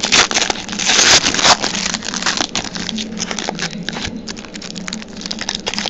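Foil trading-card pack wrapper crinkling and tearing as it is opened by hand, a dense crackle, loudest about a second in.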